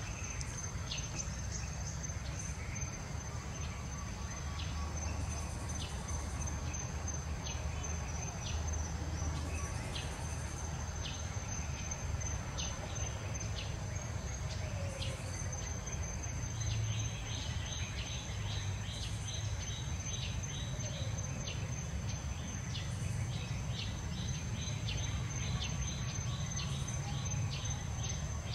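Outdoor ambience: a steady high-pitched insect drone, with short chirps repeating, most densely in the second half, over a low rumble.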